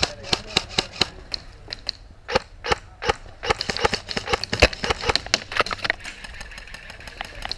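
Airsoft guns firing: many sharp pops in quick irregular volleys, thickest in the middle and thinning out near the end.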